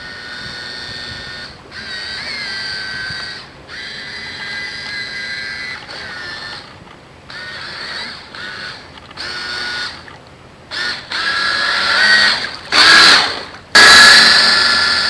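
Twin small electric motors of a toy RC boat whining, starting and stopping in short spells every second or two with small shifts in pitch. Louder near the end, with a rushing noise at about 13 and 14 seconds.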